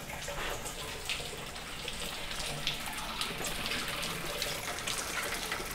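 Water pouring down through a leaking ceiling from a flood on the floor above: a steady rush of running water with irregular splashes.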